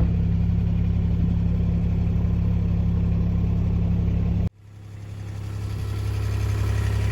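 An engine running steadily at an even, unchanging pitch. It cuts off abruptly about four and a half seconds in, and another steady engine hum fades up.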